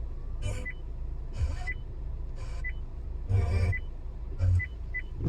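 Handheld two-way radio giving short bursts of static, each ending in a brief high beep, about once a second, over the steady low rumble of a car.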